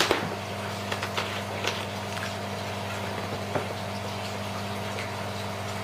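A steady low mechanical hum over a faint hiss, with a few light clicks and knocks. The sharpest click is at the very start, and a few fainter ones fall about a second, two and three and a half seconds in.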